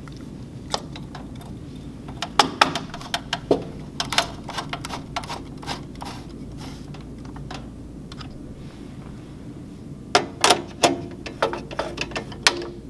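Phillips screwdriver driving small machine screws with lock washers into a sheet-metal panel: irregular sharp metallic clicks and scrapes for the first several seconds. A second run of clicks comes about ten seconds in as the fasteners are tightened with a nut driver.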